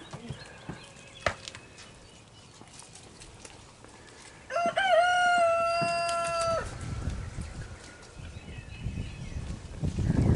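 A rooster crowing once, about four and a half seconds in: a few quick wavering notes, then one long held note of about two seconds that cuts off sharply.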